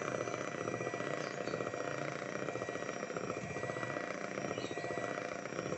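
Electric hand mixer running steadily, its twin beaters whirring through black glutinous rice flour cake batter in a stainless steel bowl.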